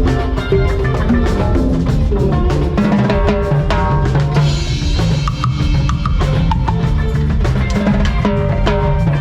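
A band playing salsa-style music, with a drum kit's bass drum and snare prominent in a dense, steady rhythm under sustained pitched instruments.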